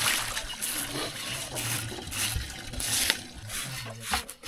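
Water being poured and splashed in irregular gushes, washing down a scraped pig carcass.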